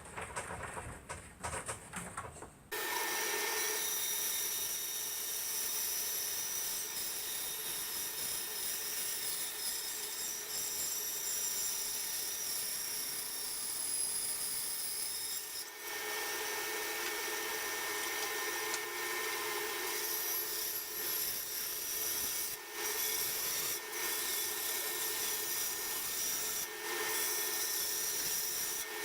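A bandsaw running and cutting through oak, a steady motor hum with the sound of the blade in the wood, starting about three seconds in after some quieter handling of the timber.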